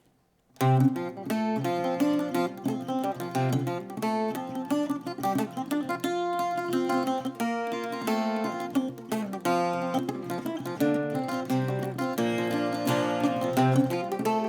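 Irish bouzouki and mandolin playing an instrumental introduction to a folk ballad: a busy run of plucked notes that starts about half a second in.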